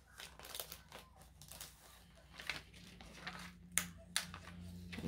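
Paper and cardstock being handled: soft rustling and crinkling, with two sharp clicks about four seconds in.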